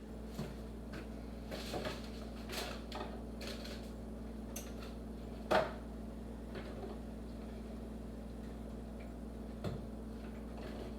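Kitchen handling sounds: scattered light clicks and knocks of containers and utensils, with one sharper knock about five and a half seconds in and another near the end, over a steady low hum.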